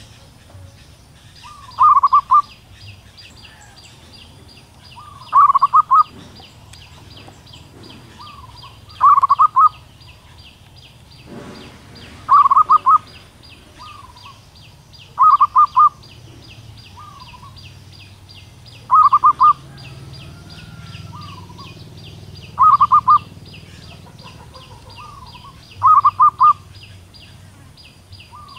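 Female zebra dove calling to attract a male: a short burst of quick staccato coos, repeated eight times about every three and a half seconds. A fast high-pitched ticking runs steadily underneath.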